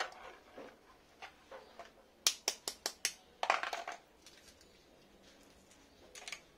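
Eggs and a clear plastic egg tray being handled: a quick run of about five sharp clicks a little over two seconds in, then a brief crackle of plastic as an egg is pulled from the tray, and a few softer clicks near the end.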